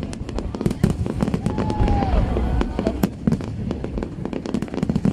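Fireworks display: a dense run of sharp crackling pops over a continuous low rumble of bursting shells, with a brief falling whistle about two seconds in.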